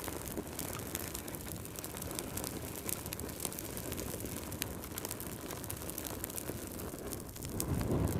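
Wood fire burning in a fireplace: a steady low rumble of flames with frequent sharp crackles and pops, and a louder low whoosh of flame near the end.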